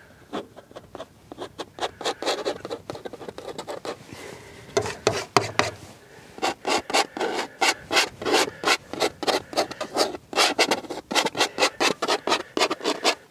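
Palette knife scraping oil paint onto a primed linen canvas in quick, repeated strokes. The strokes are sparse for the first few seconds, then come thick and fast from about five seconds in.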